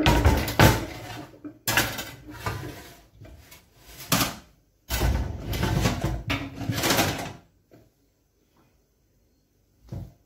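A catfish being cut into pieces with a knife: three long stretches of scraping and clattering, with sharp knocks among them, then a pause and one short knock near the end.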